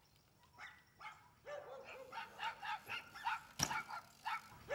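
A dog yapping in a quick run of short barks, about three a second, starting about one and a half seconds in, with one sharp knock near the middle.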